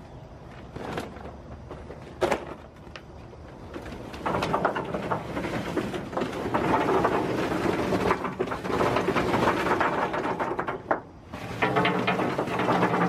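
Charcoal briquettes poured from a paper bag into the steel firebox of a large barbecue smoker: a couple of single knocks, then from about four seconds in a dense clatter of lumps falling on metal and on each other, which stops briefly near the end and starts again.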